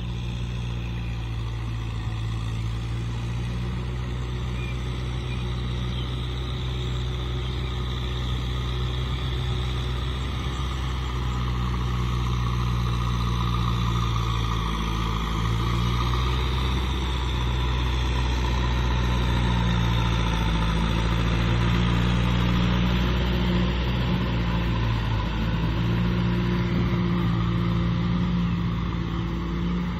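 Kubota M6040 SU tractor's four-cylinder diesel engine running steadily under load while it pulls a rotary tiller through flooded paddy mud. The sound grows louder as the tractor comes closer, peaking a little past the middle.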